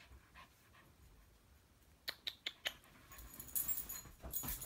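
A small terrier makes four quick, short sharp sounds close together about two seconds in, then scrambles on soft bedding as it leaps away, a rough rustling that is the loudest part.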